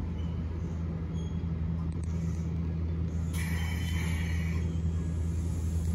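Nagano Electric Railway 1000 series Yukemuri express train (ex-Odakyu HiSE) moving slowly with a steady low hum. About three seconds in there is a squealing hiss lasting just over a second.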